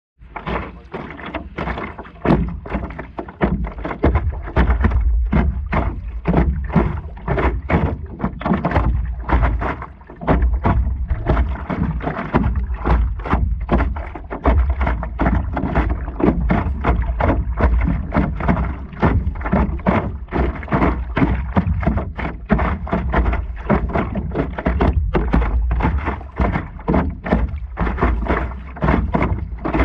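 Water splashing and sloshing against a stand-up paddleboard as it is paddled across choppy river water, with a heavy low rumble over it.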